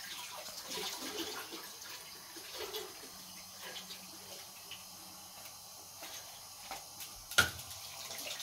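Faint knife scraping and cutting inside a red bell pepper as its core is hollowed out, with small scratchy ticks and one sharp click about seven seconds in.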